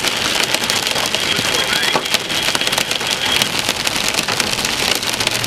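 Heavy rain beating on a moving car's windshield and roof, heard from inside the cabin: a loud, dense hiss packed with sharp ticks of drops striking.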